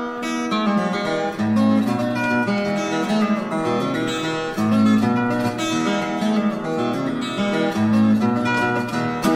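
Background music: strummed acoustic guitar with a steady chord pattern.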